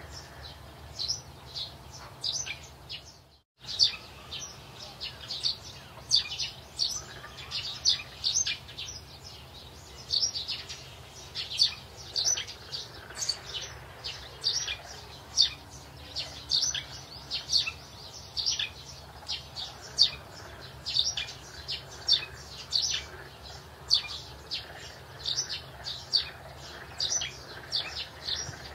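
Small birds chirping: many short, high chirps repeating over a faint steady background hum, with a brief complete dropout about three and a half seconds in.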